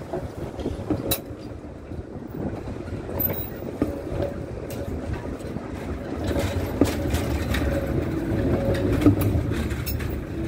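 Articulated tram passing close by at low speed: steel wheels rumbling on the rails, growing louder as the bogies come past, with a faint steady whine and a few sharp clacks from the wheels.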